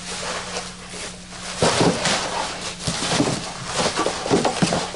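Cardboard packing pieces and crumpled packing paper being pulled out of a cardboard shipping box, rustling, crackling and scraping against the box. It is busiest from about a second and a half in.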